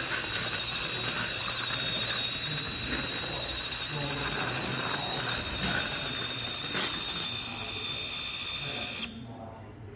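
A 1/24-scale SCX24 RC pull truck's small electric motor and gears whining steadily under load as it drags a pulling sled over dirt. The sound drops away suddenly about nine seconds in.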